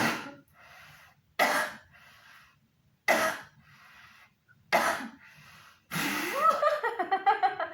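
A woman coughing hard through a cloth mask: four separate coughs about a second and a half apart, each followed by a short breath. Her voice comes in near the end.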